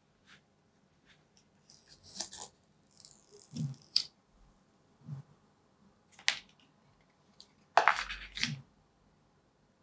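The plastic protective wrap being peeled off a new iPhone's screen, crinkling in short bursts, with sharp clicks from handling the phone and its box. The loudest is a rustle with a low knock near the end.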